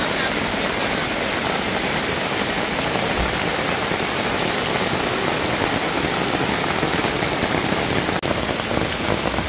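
Heavy rain pouring steadily on a tarp canopy and the waterlogged ground around it, with a momentary dropout about eight seconds in.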